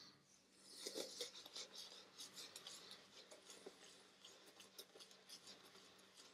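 Shaving brush working tallow shaving-soap lather on the face: faint, crackly wet swishing of bristles through the lather, picking up about half a second in and loudest around a second in.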